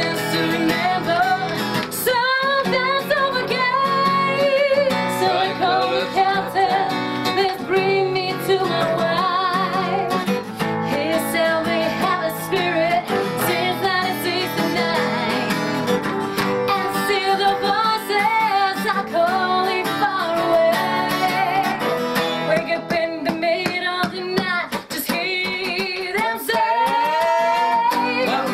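A woman singing to a strummed acoustic guitar.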